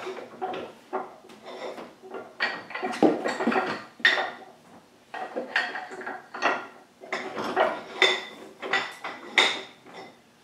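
A woodworking vise being tightened and adjusted: irregular metallic clanks and clinks with a short ring, mixed with wooden knocks, as the jaws are brought up onto the base of a small workbench.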